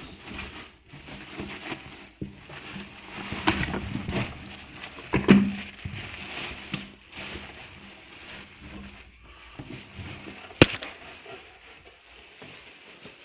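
Plastic wrap, foam packing and cardboard rustling and crinkling as a bench drill press is handled out of its shipping box, with a louder knock about five seconds in and a sharp click later on.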